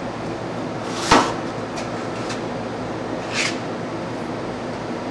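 Steady background noise in a processing room, with a sharp knock about a second in, two faint clicks, and a softer knock a couple of seconds later.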